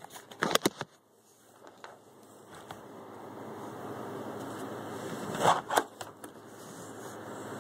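Handling noise from a phone camera being moved and set down on a desk: a few sharp knocks and taps against the phone about half a second in, two more about five and a half seconds in, over a faint hiss that slowly grows louder.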